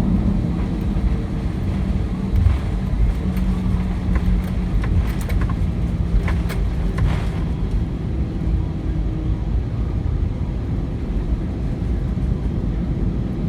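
Cabin noise inside an Airbus A319 on the ground: a steady low rumble from the jet engines at idle, with a faint steady hum. A few light clicks come about five to seven seconds in.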